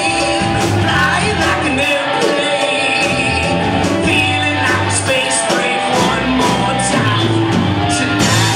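Live rock band playing loud: a singer's amplified vocal over electric guitars and a drum kit, with the echo of a large room.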